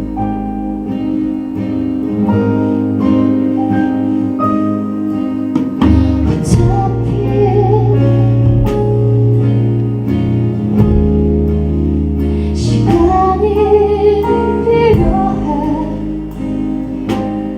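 Live band playing a song: acoustic guitar strumming over bass and drums, with a wavering melody line coming in twice.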